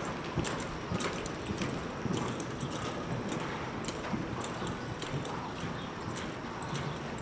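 Horse's hoofbeats on soft arena dirt at a lope, a steady run of dull strikes.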